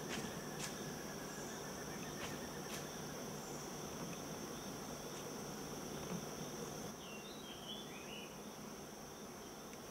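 Faint insect chorus: a steady high-pitched drone of crickets, with a few short chirps about seven seconds in.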